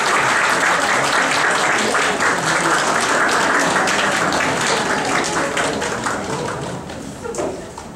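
Audience applause, a dense steady clapping that thins out over the last few seconds into scattered claps.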